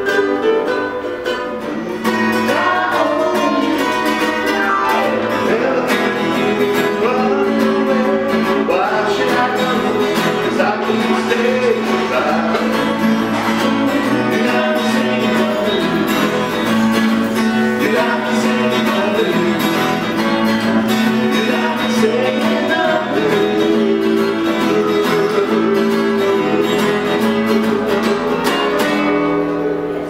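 Live music from a singing duo: a woman's voice over keyboard and a plucked string accompaniment, a ukulele at first and then, after a sudden jump in loudness about two seconds in, an acoustic guitar.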